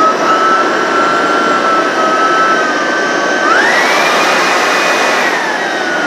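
Cecotec Conga Rockstar 10000 Nebula cordless stick vacuum running, a steady motor whine over rushing air. About three and a half seconds in the whine rises sharply in pitch and holds, then falls back lower near the end, as the power level is switched down to level 1.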